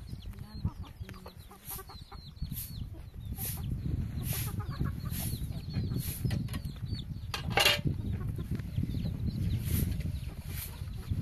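Chickens clucking over a steady low rumble, with one louder, sharper call about seven and a half seconds in.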